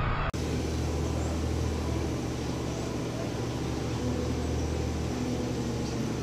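A motor running steadily with a low hum over background noise. The sound drops out briefly just after the start.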